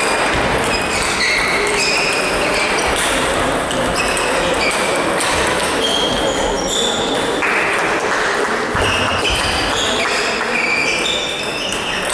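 Table tennis balls clicking off bats and tables, short pings coming irregularly from several tables at once, over the steady din of a busy sports hall.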